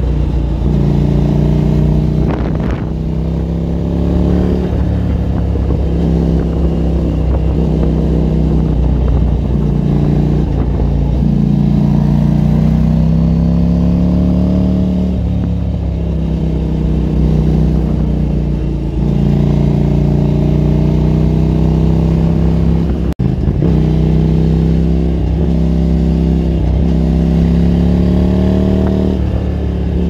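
Motorcycle engine under way, heard close from the bike being ridden: its pitch climbs steadily through each gear and drops back at each shift, about seven times, with a brief cut in sound at one shift near the end. Wind rush underlies it.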